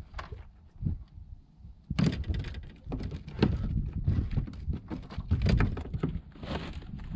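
Rapid, irregular knocking and thumping on a small fibreglass boat, starting about two seconds in, over a low rumble of wind on the microphone.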